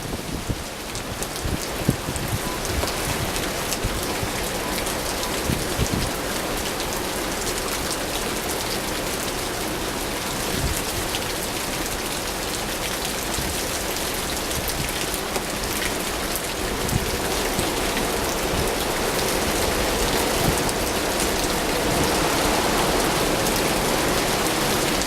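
Steady heavy rain from a winter storm, a dense hiss of many small drop hits, growing a little louder near the end.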